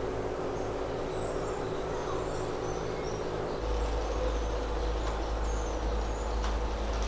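Birds chirping over a steady hum. About halfway through, a deep low rumble comes in suddenly and carries on.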